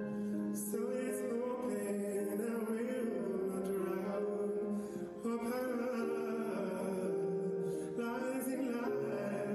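A slow, recorded piano ballad playing: a high, wavering sung vocal line held over sustained piano chords.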